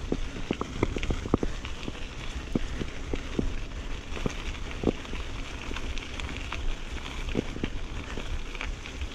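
GT Avalanche mountain bike rolling over a dirt trail: a steady rumble and hiss of the tyres on the ground, broken by irregular clicks and rattles from the bike over the rough surface.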